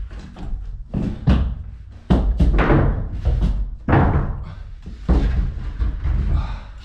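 Large plywood sheets thudding and knocking against each other, the floor and the walls as they are lifted and set into place: a run of six or seven loud thuds with scraping between them.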